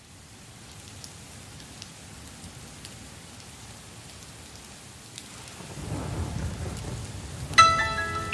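Steady rain fading in, with a low rumble of thunder building from about six seconds in. Near the end a bright chord of music strikes suddenly, the loudest moment, and rings on.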